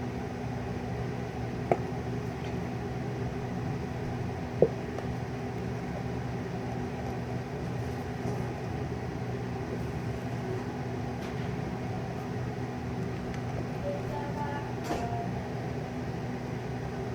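A steady machine hum, like a small household appliance or fan running, with two sharp clicks about three seconds apart, the second louder.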